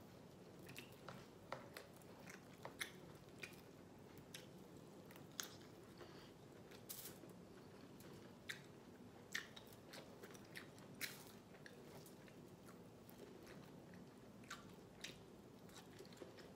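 Faint close-up eating sounds: a person chewing food, with irregular sharp smacks and clicks from the mouth.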